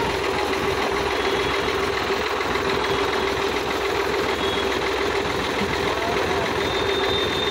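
Sonalika DI 745 III tractor's diesel engine idling steadily.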